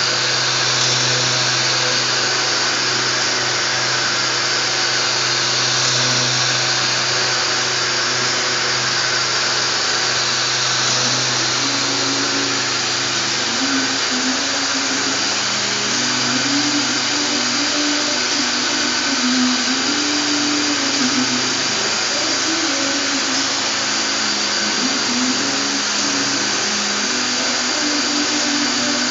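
Gottschild HBS 2600 automatic sanding and polishing machine running steadily: a dense mechanical noise with a low hum, a thin steady high whine, and a mid-pitched tone that wavers up and down.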